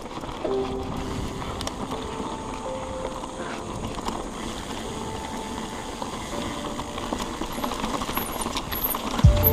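Steady rushing noise of a mountain bike being ridden along a dirt trail: tyres rolling and wind on the camera's microphone, with faint background music over it and a low thump near the end.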